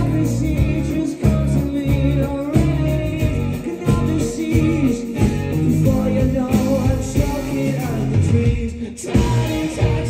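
A rock band playing live, with a lead singer singing over electric guitars and drums.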